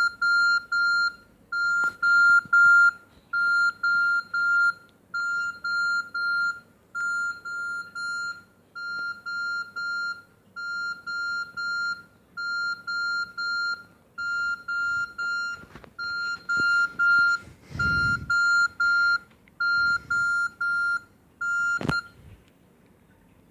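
Nokia 6300 mobile phone playing a beeping ringtone: one steady high tone pulsed in groups of about three quick beeps, a group roughly every 1.7 seconds. A low thump comes near the end, and the tone cuts off with a click about 22 seconds in.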